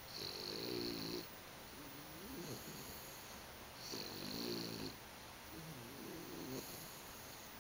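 A sleeping pet snoring. Two longer, louder snores, about a second in and about four seconds in, with softer breaths rising and falling between them.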